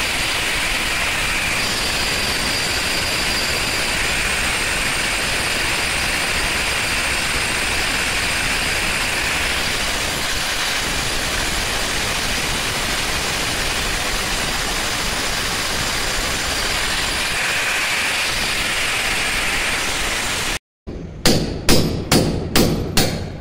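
Hammer drill boring a hole up into a concrete ceiling, running steadily for about twenty seconds and then stopping abruptly. Moments later come about six sharp knocks in quick succession.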